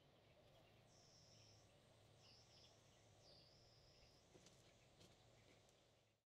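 Near silence: faint outdoor background with a low hum and three short, high, drawn-out buzzing calls from an insect or bird, then the sound cuts out completely near the end.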